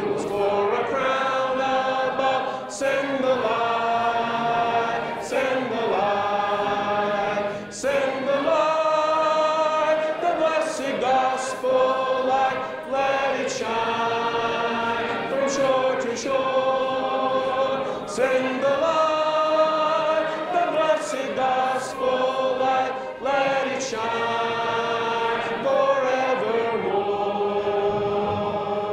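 Congregation of many voices singing a hymn together, unaccompanied, in phrases with short breaks between them.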